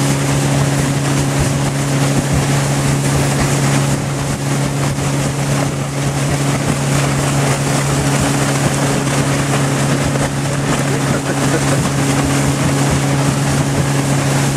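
Outboard motors running steadily at planing speed, a constant unchanging drone, with wind buffeting the microphone and water rushing past the hull.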